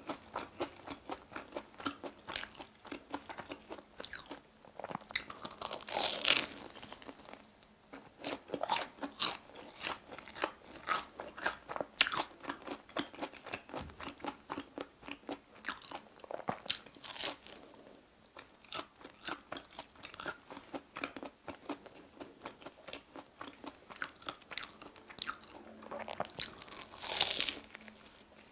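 Close-miked crunching and chewing of a fried potato-cube-crusted mozzarella corn dog, a steady crackle of crisp crust, with bigger crunching bites about six seconds in and again near the end.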